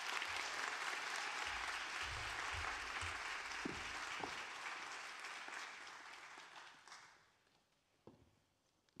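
Audience applause, a dense steady clapping that tapers off and stops about seven seconds in.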